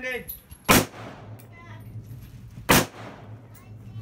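AR-15-style rifle firing two loud single shots about two seconds apart, each cut short by a brief echo.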